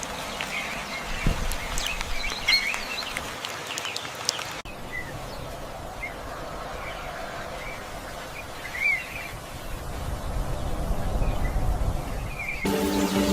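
Wild songbirds chirping and calling, dense at first. After an abrupt cut about a third of the way in the calls are sparser over a low steady rumble. Music with held notes comes in near the end.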